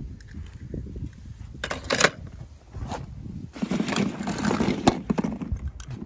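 Small hollow plastic ball-pit balls clattering and rustling against each other as a hand rummages through them. A few sharp clicks come about two seconds in, then a longer, denser stretch of clattering past the middle.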